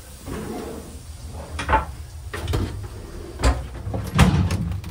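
Inside a train carriage: a steady low rumble with several sharp knocks and clunks, the loudest about four seconds in.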